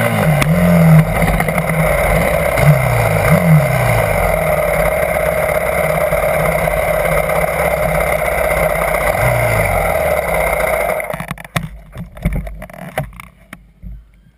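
Dirt bike engine running close to the microphone, its pitch rising and falling as the throttle is opened and closed on the trail, then holding steady. About eleven seconds in it cuts out, followed by a few knocks and clicks.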